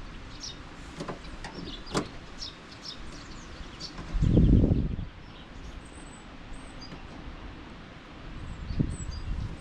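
Sharp plastic clicks and knocks of wiring connectors being worked loose in a car's tailgate, with one louder low rumbling thump lasting about a second, about four seconds in. Birds chirp faintly in the background.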